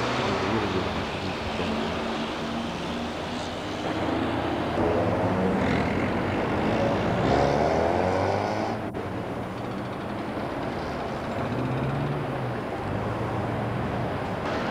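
A heavy engine running, its note rising and wavering for a few seconds in the middle before settling again.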